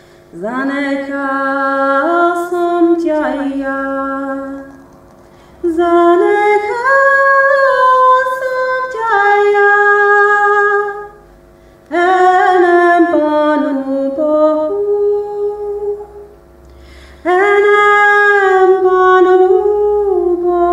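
Woman singing a cappella in four long, slowly moving sung phrases. Her voice is layered with a loop pedal, so a quieter held note keeps sounding underneath through the pauses between phrases.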